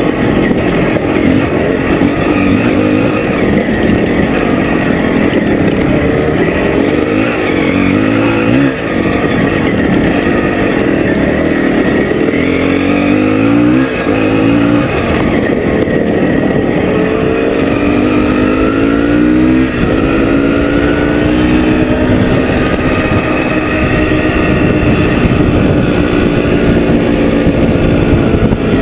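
Can-Am 370 two-stroke single-cylinder enduro motorcycle ridden hard, its engine note climbing in pitch through the gears with short dips at three shifts, then running on at a steadier, higher pitch.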